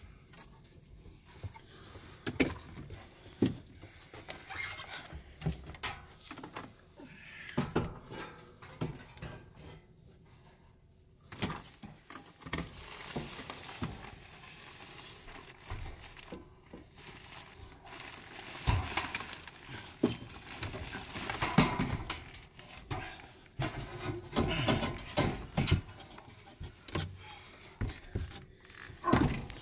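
Irregular knocks, clunks and scraping as the metal housing of a belt-driven whole house fan is handled and shifted into place over its ceiling opening, with rustling in between. The knocks come thickest and loudest in the second half.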